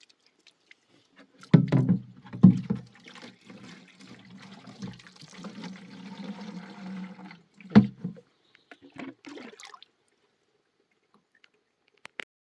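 Water being poured or sloshing, with three heavy dull knocks. It stops about two-thirds of the way in.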